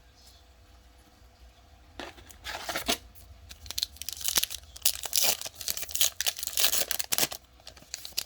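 Trading-card pack wrapper being torn open and crinkled, a quick run of rips and crackles starting about two seconds in.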